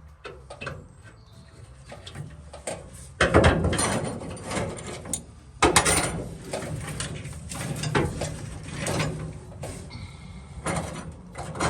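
Clicking and clattering of hand tools and metal parts being worked, with louder spells starting about three and six seconds in.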